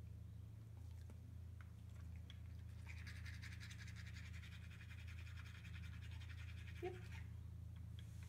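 Toothbrush scrubbing a dog's teeth in fast, even strokes for about four seconds, starting about three seconds in. A brief squeak comes near the end, over a steady low hum.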